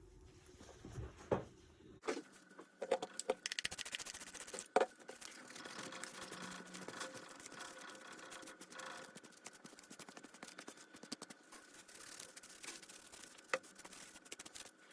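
Scraping and scratching with many light clicks and taps, like small parts being handled and worked on.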